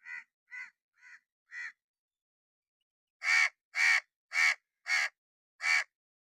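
A crow cawing: four quieter caws in the first two seconds, then after a pause five loud caws about half a second apart.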